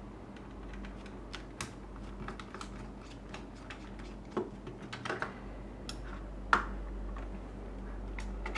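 Scattered light clicks and taps of small plastic and metal parts being handled while a handheld LCR meter is taken apart, with a sharper click about six and a half seconds in.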